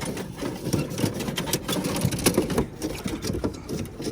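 Rustling and clattering from objects being handled and unwrapped while rummaging through a trunk: a quick, busy run of clicks and scrapes.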